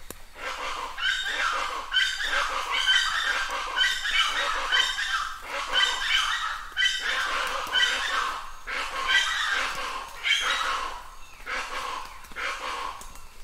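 A run of short, pitched animal calls repeating about once or twice a second, over a faint hiss.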